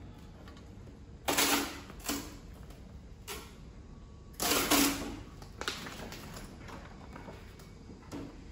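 A large sheet of self-adhesive plastic reinforcing film being lifted and flexed by hand, rattling and crackling in several short bursts. The loudest come about a second in and halfway through.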